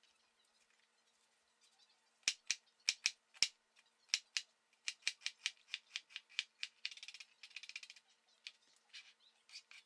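Chef's knife dicing a red onion on a plastic cutting board: sharp knocks of the blade on the board, a few spaced strokes starting about two seconds in, then a quicker run of chops.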